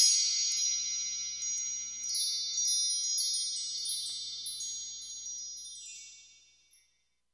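Intro sound effect of bright, high chimes: tinkling notes over a sustained shimmering ring that slowly fades away about six and a half seconds in.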